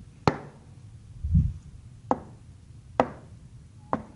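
Four sharp clicks from someone working a computer's input (clicking or tapping while editing on screen), spaced about a second apart, with a short low thump between the first and second.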